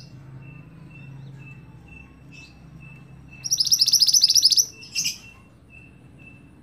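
Mantenan songbird singing one loud, fast, trilling burst of rapid high notes about halfway through, followed by a short call. Faint short high peeps repeat about twice a second throughout.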